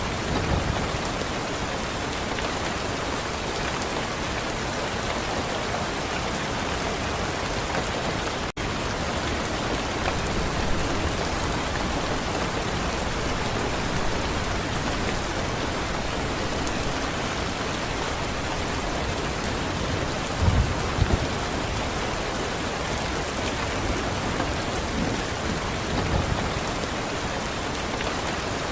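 Steady heavy rain falling, with a few short low rumbles of thunder, the strongest about twenty seconds in. There is a momentary dropout about eight and a half seconds in.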